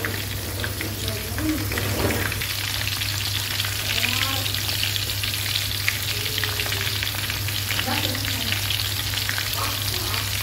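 Oil sizzling and crackling steadily in a frying pan as two whole split rats coated in lemongrass and chili fry, over a steady low hum.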